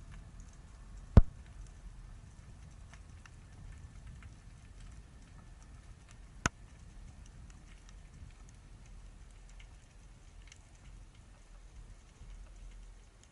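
Underwater ambience: a low rumble with a faint continual crackle of small ticks, and two sharp clicks, a loud one about a second in and a weaker one about six and a half seconds in.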